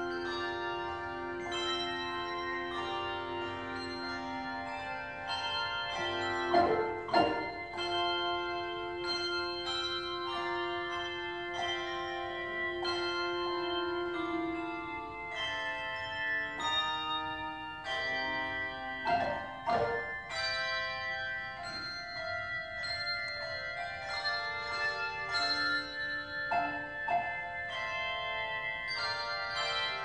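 Handbell choir ringing a hymn tune: many bells struck together in chords, each note ringing on and overlapping the next, with louder strokes twice.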